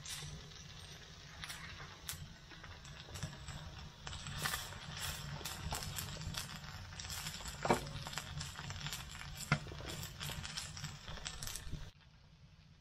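Eggs and hash browns sizzling on a griddle over a wood stove, with a spatula scraping and tapping against the griddle, two sharper clacks around the middle. The frying stops abruptly near the end.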